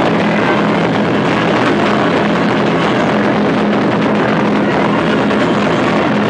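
Several large Chinese barrel drums played together in a loud, continuous drum roll, the strokes running into one unbroken rumble.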